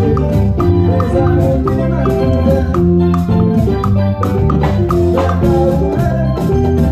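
Salsa band music with electronic conga and bongo sounds played with sticks on a Roland SPD-20 percussion pad, steady percussive hits over sustained pitched notes and bass.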